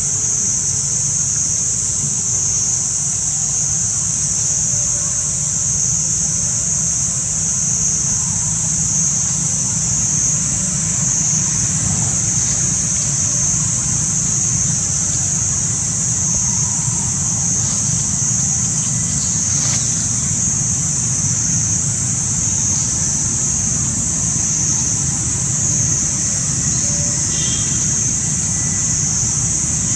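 Steady high-pitched drone of an insect chorus, unbroken and even, over a constant low rumble.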